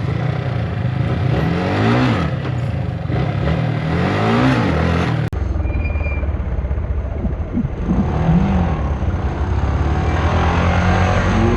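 Motorcycle engine being ridden, its revs rising and falling several times over a rush of wind noise on the camera. The sound drops out briefly about five seconds in.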